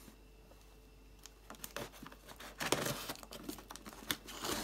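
Hands and a small knife working on a tape-sealed cardboard parcel: scattered scrapes, taps and rustles on the cardboard and tape, starting about a second and a half in.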